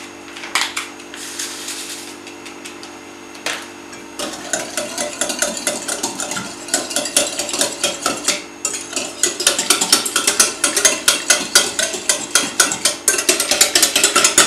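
Stainless wire whisk beating a thin egg-and-milk batter in a glass bowl, its wires rapidly clicking against the glass; the whisking starts about four seconds in and grows louder toward the end, over a steady low hum.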